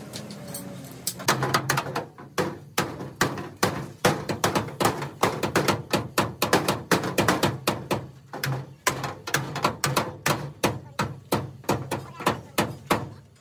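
Hammer blows on metal, about three a second, starting about a second in and running on in a quick, uneven rhythm, each strike ringing briefly: panel beating on a damaged truck cabin.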